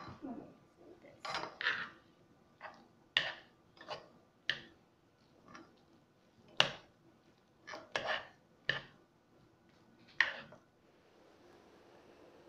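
A slotted spatula knocking and scraping against a metal saucepan as noodles are mixed in it, in about a dozen irregular clacks that stop near the end.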